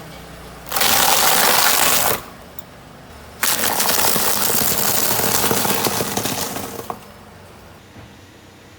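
Crunchy objects crackling and breaking as a car tyre crushes them. There are two bursts: a first of about a second and a half, then a longer one of about three and a half seconds that trails off. A low steady background remains afterwards.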